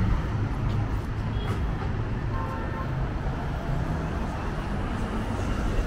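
Steady rumble of road traffic passing on a city street, with no single event standing out.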